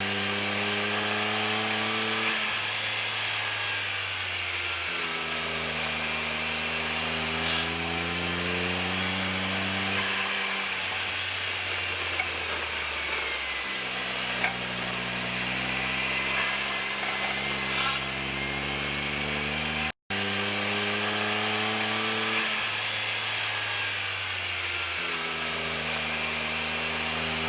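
Honda S660's small turbocharged three-cylinder engine and CVT under way, the engine note climbing and then dropping back in steps several times. About seven seconds in, and again about seventeen seconds in, there is a brief abnormal noise from the drivetrain. It appeared after a CVT fluid change and the owner suspects the CVT.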